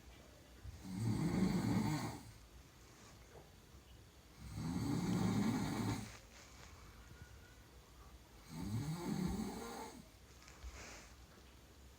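A person snoring: three long, low, rasping snores about three and a half to four seconds apart, with quiet breaths in between.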